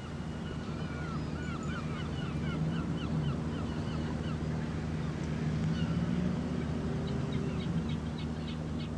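Gulls calling in a run of short repeated cries, several a second, with a quicker series of sharp calls near the end, over a steady low drone.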